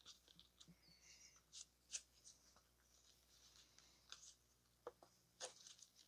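Near silence with a few faint, scattered clicks and scrapes from handling a cut-open metal oil filter.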